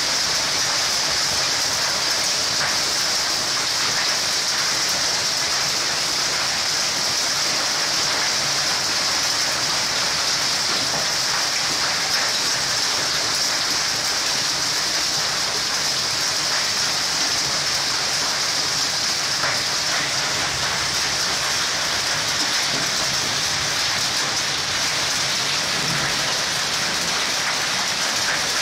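Heavy rain mixed with hail pouring down, a steady dense hiss with a few faint ticks.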